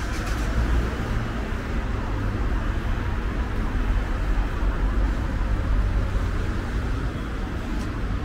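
Steady city street ambience with a continuous low rumble of traffic.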